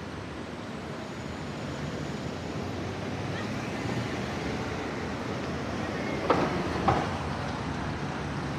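Road traffic at a city intersection: a steady rumble of cars idling and pulling through, growing a little louder. Two short, sharp, loud sounds about half a second apart stand out roughly two-thirds of the way in.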